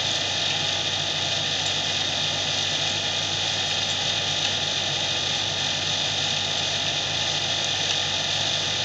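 Steady machine noise in the background: an even, unbroken drone with a low hum under it.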